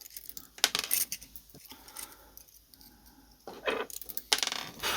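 Small metal typewriter parts clicking, rattling and scraping as they are handled and fitted back into the carriage-stepping mechanism, in short clusters about a second in and again near the end.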